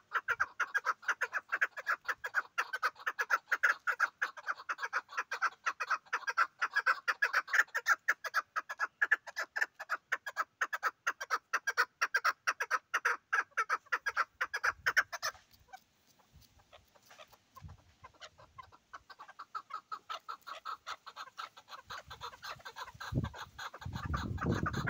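Chukar partridge calling: a long, rapid run of repeated clucking notes that stops about fifteen seconds in, then starts again more faintly a few seconds later. A low rumble comes in near the end.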